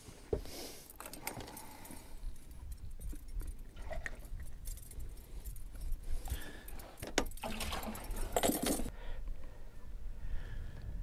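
Metal fish-stringer clips clinking and jangling, with scattered clicks and rustling, as a crappie is clipped onto the stringer; the clinking is busiest shortly before it stops, about two seconds from the end.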